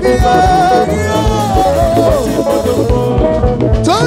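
Live band playing: a drum kit keeps a steady beat under electric guitar, bass guitar and keyboard.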